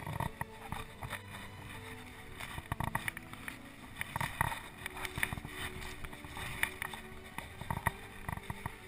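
Canoe being paddled on a pond: irregular knocks and splashes of paddle strokes against the water and the hull.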